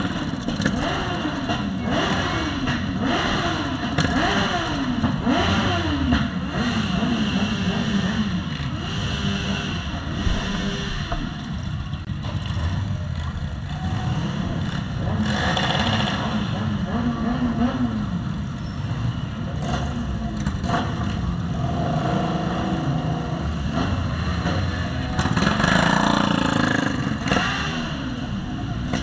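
Motorcycle engines revving in a quick string of rising pitches, one after another, then running on as the bikes ride by, with a louder pass near the end.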